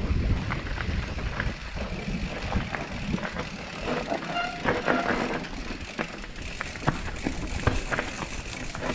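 Mountain bike rolling over a rough trail: frequent rattling clicks and knocks from the bike, over a low rumble of wind on the microphone.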